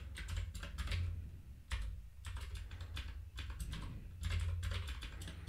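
Typing on a computer keyboard: a quick, irregular run of key clicks while code is edited, over a low steady hum.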